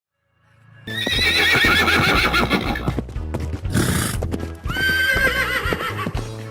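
Horse whinnying twice, long wavering calls with a short breathy burst between them, over hoofbeats and a steady low background hum.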